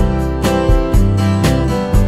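Background music with strummed acoustic guitar and a steady beat of about two strikes a second.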